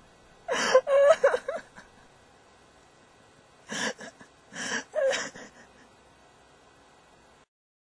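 A girl whimpering and sobbing: a high, wavering cry about half a second in, then two shorter, breathy sobs around four and five seconds in.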